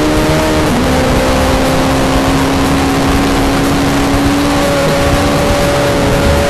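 Motorcycle engine at high revs, dropping in pitch as it shifts up a gear about a second in, then climbing slowly as it pulls again, over loud wind rush at speed.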